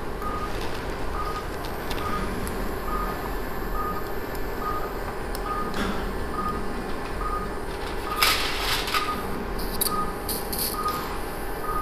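Operating-room patient monitor giving its pulse beep: a short, even tone repeating steadily about one and a half times a second, each beep marking a heartbeat, over a steady room hum. A few brief clicks of surgical instruments come in near the end.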